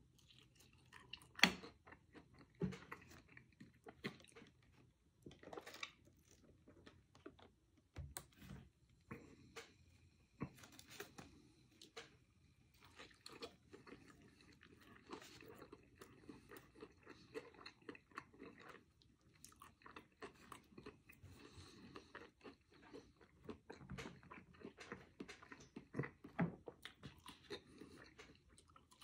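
Close-miked chewing and biting of a Baconator bacon cheeseburger and French fries, with irregular crunches and wet mouth clicks. The sharpest crunch comes about a second and a half in.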